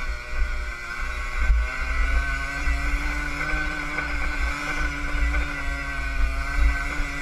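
Yamaha DT50R 50cc two-stroke single-cylinder engine running under load as the dirt bike is ridden along a dirt track. Its pitch rises slightly and then holds steady. A heavy wind rumble sits on the microphone, and there is a single knock from a bump about a second and a half in.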